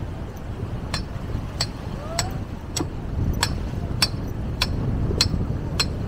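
Sharp clicks repeating very evenly, a little under two a second, starting about a second in, over a steady low rumble.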